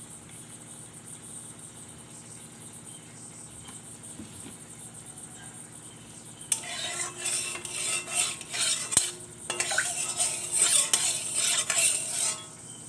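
A low steady background for the first several seconds, then oil in a hot kadai sizzling while a metal utensil scrapes and clatters against the pan, irregular and loud, dying down shortly before the end.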